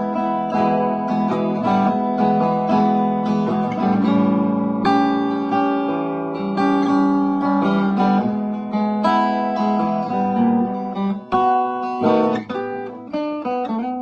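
Vintage 1950s/60s TWIST archtop guitar played unaccompanied: a continuous run of strummed and picked chords with frequent chord changes.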